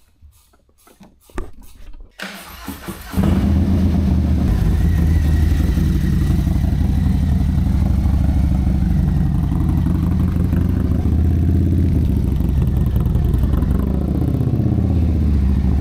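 Harley-Davidson Low Rider ST's Milwaukee-Eight 117 V-twin being started about two seconds in: a brief crank, then the engine catches and runs loud and steady. Near the end its pitch rises and falls as the throttle is worked.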